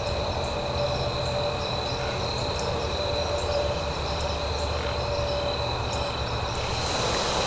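Wind rumbling on a camcorder microphone, with a steady thin high tone and a few faint chirps above it.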